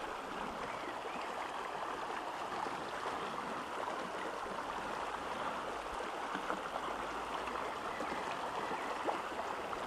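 A small, shallow stream running over stones in a riffle: a steady sound of flowing water.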